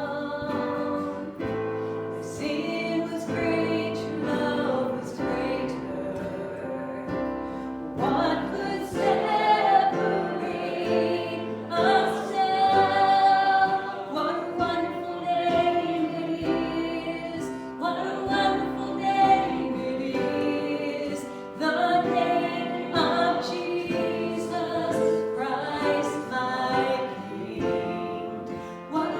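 A group of voices singing a worship song in a church service, phrase after phrase with held notes.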